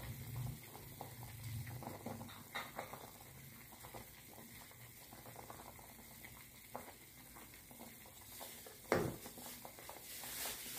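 Pot of fish soup at a rolling boil: faint, steady bubbling with small crackles. A single sharp knock comes about nine seconds in.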